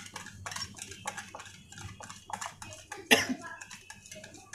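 Wire whisk beating egg and sugar in a bowl: rapid ticking strokes against the bowl, several a second. One short, loud burst about three seconds in stands out above the whisking.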